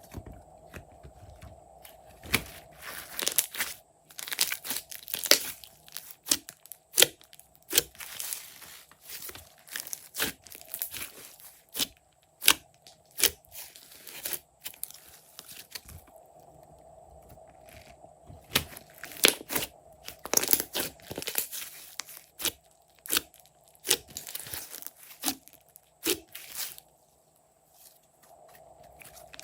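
Glossy slime being squeezed, poked and stretched by hand, giving irregular sharp pops and clicks in clusters with short pauses between them.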